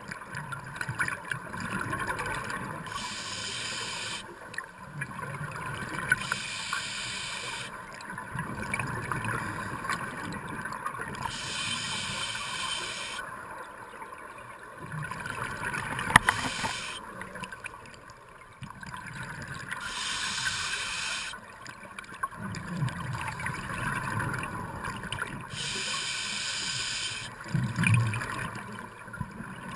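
Scuba regulator breathing underwater: a hissing inhale every several seconds, each followed by a gurgling rumble of exhaled bubbles. A single sharp knock about halfway through.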